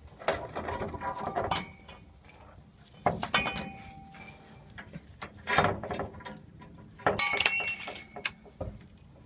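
Metal clinking and rattling in four short bursts, from a just-removed fuel-tank strap bolt and hand tools being handled. The last burst carries a bright metallic ring.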